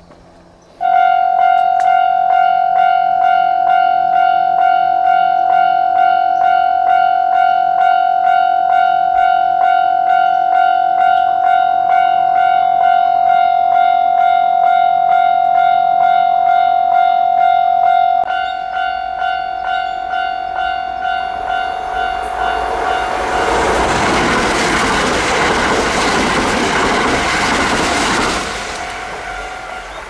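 Japanese railway level-crossing alarm starts up about a second in and rings steadily, dropping in volume about 18 seconds in. From about 21 to 28 seconds a train passes over the crossing with a loud rush and rumble of wheels on rails, and the alarm keeps ringing more faintly after it.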